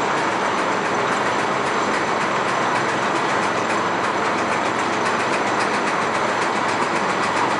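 Steel roller coaster train running along its track: a steady rolling roar that holds at one level throughout.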